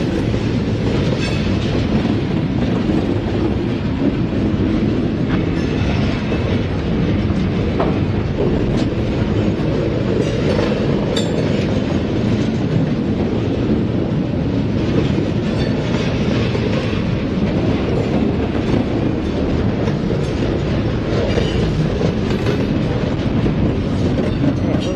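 Freight train cars, covered hoppers and boxcars, rolling steadily past close by. A continuous low rumble of steel wheels on rail, broken by scattered clicks and clanks.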